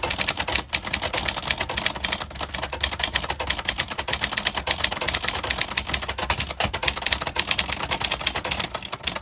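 Fast touch-typing on a Brother-made Signature 440T plastic portable manual typewriter: a dense, continuous clatter of typebar strikes on the platen.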